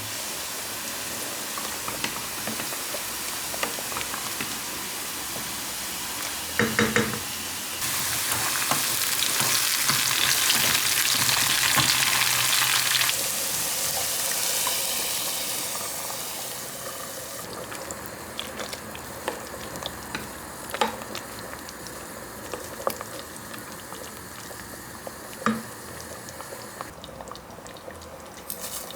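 Food sizzling in a pan with small clicks and knocks of a utensil stirring, the sizzle louder for several seconds in the middle.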